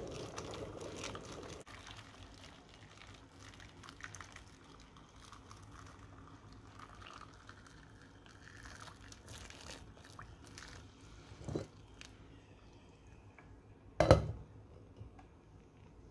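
Water poured in a thin stream into a glass bowl of peppers, loudest for the first second or two and then a softer splashing trickle. A short knock about 11.5 s in, then a loud sharp clatter of a lid set down on the glass bowl about 14 s in.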